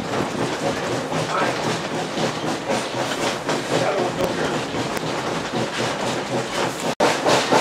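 Open passenger coach of a steam-hauled train rolling along the track: a steady rattle and rumble of wheels and car body, with wheel clatter on the rails. It drops out for an instant about seven seconds in.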